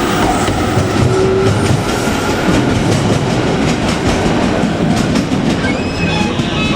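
JR Kyushu 817-series electric train running past close by, a loud steady rumble with the wheels clattering over rail joints. A thin rising whine joins near the end.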